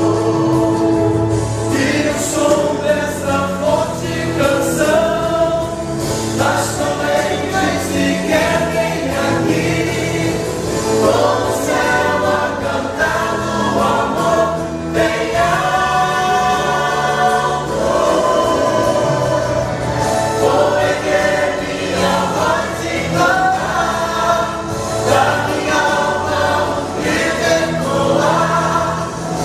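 A choir singing a gospel song with a male soloist, with musical accompaniment and no pauses.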